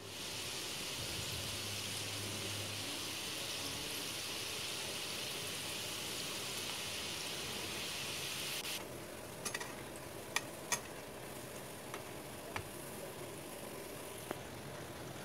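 Gujiyas deep-frying in hot oil in a kadhai: a steady sizzle. About nine seconds in it drops abruptly to a quieter sizzle, with a few sharp clicks of a metal utensil against the pan as the gujiyas are turned.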